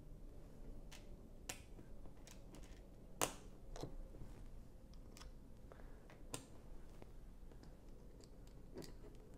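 Small Lego plastic tiles being handled and pressed onto a plate: a scattering of separate sharp clicks and taps, the sharpest about three seconds in.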